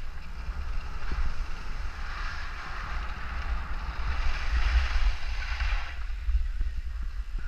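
Skis hissing and scraping over packed snow, with wind buffeting the body-mounted camera's microphone as a steady low rumble. The ski hiss drops away about six seconds in while the rumble goes on.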